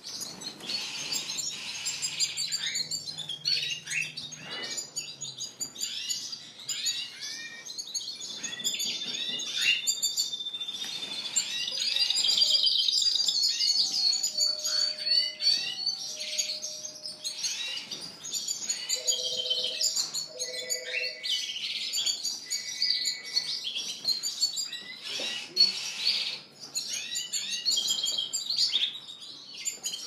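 Several canaries singing together: rapid chirps, rolling trills and warbled whistles that overlap without pause. There is a held whistled note from about a third of the way in, followed by the loudest stretch of trilling.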